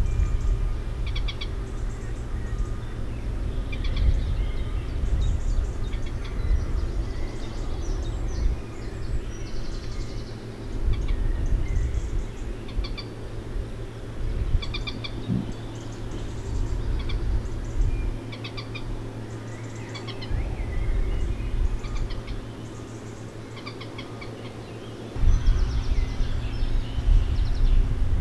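Small birds chirping and singing in short, repeated phrases, over a low, uneven rumble of wind on the microphone that comes and goes in gusts, easing off for several seconds before surging back near the end.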